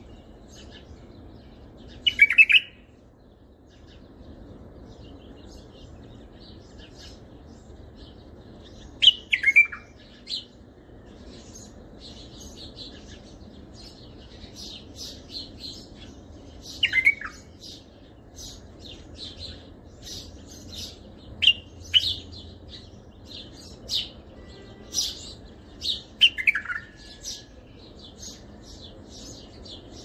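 Bulbul song in the Baghdadi style used as a tutor song for training young bulbuls: loud falling whistled phrases about every five to seven seconds, with a scatter of short high chirps between them in the second half, over a steady low background hiss.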